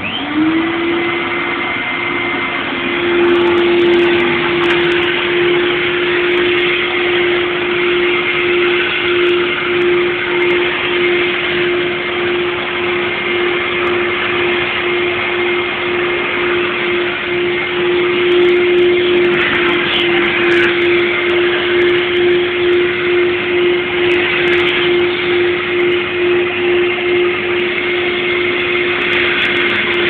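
Hoover Futura 2000 commercial vacuum cleaner, with its twin 950-watt Ametek motors, switched on at its front-panel switch. The motor spins up with a rising whine that settles to a steady hum within about half a second, then runs on loudly. The sound grows louder again about three seconds in, and in the second half its loudness pulses slowly and regularly.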